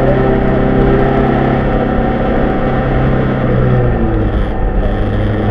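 Rally car engine, heard from inside the car, pulling at steady high revs on a snowy stage; about four seconds in the engine note steps down and holds at a lower pitch.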